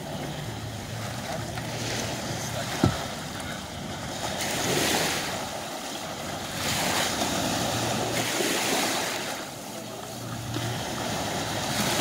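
Small waves washing in over shallow water, the surf swelling and easing several times, with wind buffeting the microphone. A single sharp knock sounds about three seconds in.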